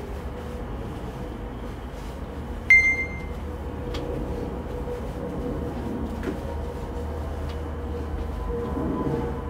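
A steady low hum, with one short, loud electronic beep about three seconds in and a few faint clicks.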